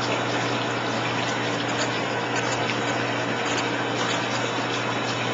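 Steady rush of churning bath water with a constant low hum underneath, as bubble-bath foam builds up in the tub.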